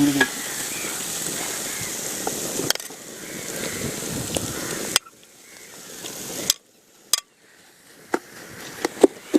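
Onion-and-spice masala sizzling in an uruli with a steady hiss, with light knocks of a spoon as mashed potato is added. The sizzle cuts off abruptly about five seconds in, returns briefly and stops again, followed by a short gap and a few scattered clicks.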